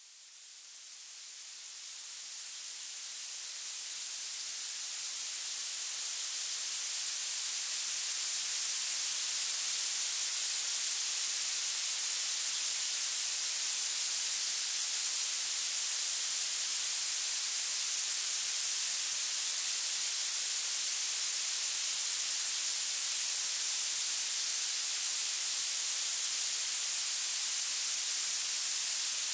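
Violet noise: a steady, high-pitched hiss whose loudness climbs toward the highest pitches, with almost nothing in the bass. It fades in over roughly the first eight seconds, then holds at a constant level.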